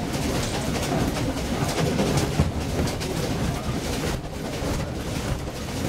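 Steady rumble and rattle of a moving passenger train, heard from inside the carriage.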